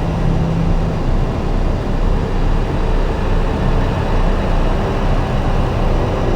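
Slowly evolving electronic drone from a Make Noise Strega and a Meng Qi Wingie with looped drone layers: a dense, rumbling noise wash with steady held tones. A low held tone drops out about a second in.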